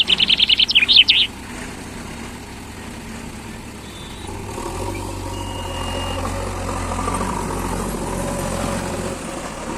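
A bird chirps rapidly and loudly for about the first second. Under it a backhoe loader's diesel engine runs steadily and gets louder about halfway through, as if working under load.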